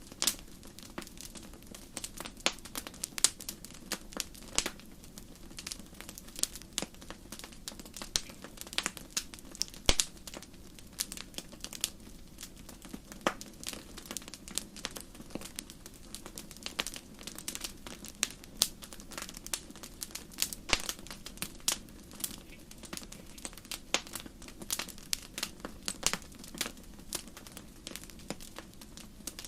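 Wood campfire crackling: irregular sharp pops and snaps, several a second, over a steady low rushing sound.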